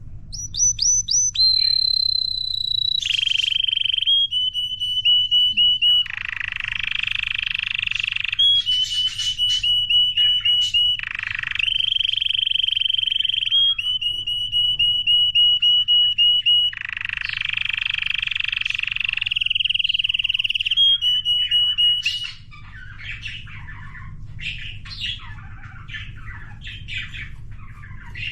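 Young canary singing its first full song: long runs of rapid repeated trilled notes alternating with buzzy rolls. About 22 seconds in, the song drops to softer, scattered chirps.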